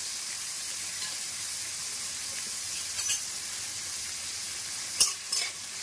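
Shredded carrot and cabbage sizzling in hot oil in a steel wok, with a metal spoon scraping and knocking against the pan a few times, the loudest knock about five seconds in.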